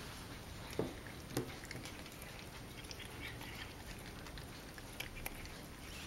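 Faint soft clicks and knocks of Siamese cats eating and snatching at pieces of chicken, two slightly louder knocks about a second in.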